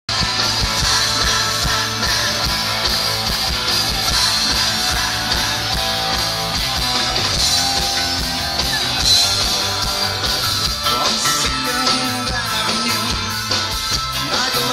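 Rock band playing live through a concert PA, heard from the audience: electric guitar over drums, with a fast, even cymbal beat coming in about eleven seconds in.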